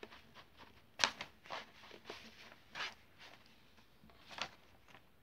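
Diamond painting canvas and its curled cover sheet rustling as hands handle it: several short, irregular scrapes and crinkles, the loudest about a second in.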